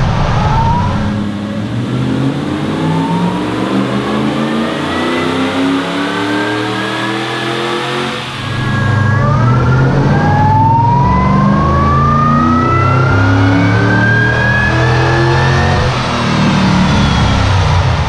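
Supercharged V8 in a Nissan Patrol under full throttle on a chassis dyno, revs climbing steadily through the gears with a high whine rising alongside. It shifts up about a second in, again about eight seconds in, and near the end.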